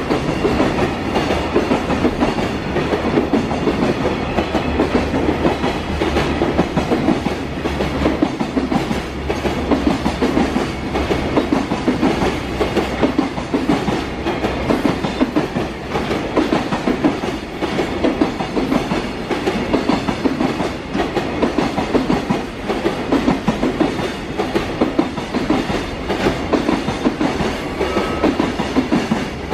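Freight train of container flatcars passing through: a steady rumble with a quick, regular clickety-clack of wheels over the rail joints.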